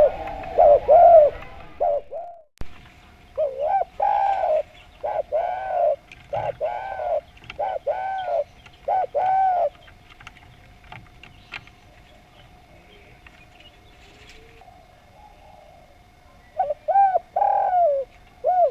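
Spotted dove (derkuku) cooing in repeated phrases of arched, mellow coos. A run of about seven coos comes in the first half, then a pause, then another short phrase near the end.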